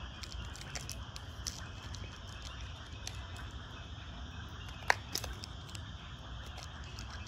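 Outdoor background noise with no one handling anything: a steady low rumble and hiss with a faint high, steady band, light scattered clicks, and one sharp click about five seconds in.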